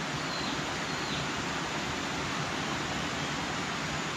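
Steady, even rushing of running water, with a few faint, short, high chirps about half a second and a second in.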